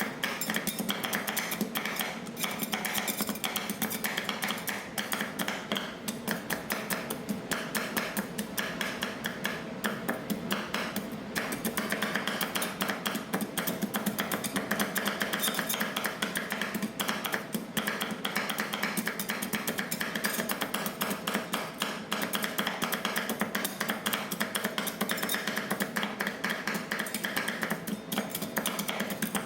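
Metal spatulas chopping and tapping rapidly and continuously on a frozen steel rolled-ice-cream plate, working the ice cream mix.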